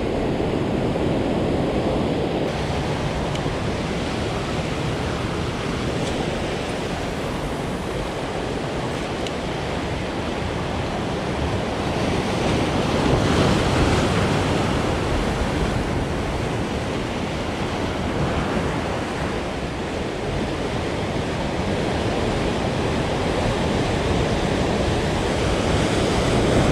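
Ocean surf breaking and washing over rocks, a steady rushing that swells about halfway through and again near the end.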